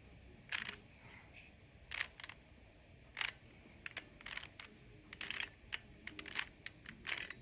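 A Rubik's Cube being turned by hand: its plastic layers click and clatter in irregular short runs, one twist after another.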